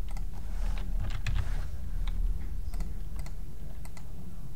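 Computer keyboard keystrokes, a series of separate taps, over a low steady hum.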